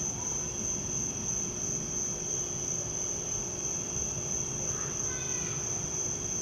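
Steady, unbroken high-pitched chorus of night insects. A brief faint call rises about five seconds in.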